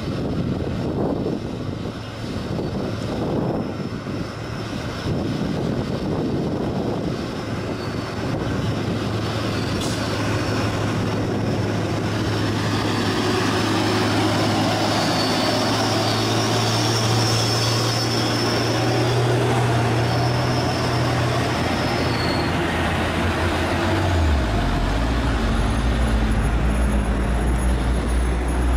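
Hino and Nissan UD three-axle diesel trucks labouring up a steep grade under heavy load, engines running hard in low gear as they pass close by. The engine note climbs slowly, with a faint high whine through the middle, then a deeper engine sound takes over about 24 seconds in.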